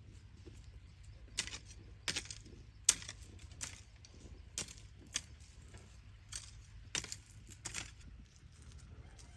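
A series of about ten sharp knocks or clacks at irregular intervals, the loudest a little under three seconds in, over a low steady background rumble.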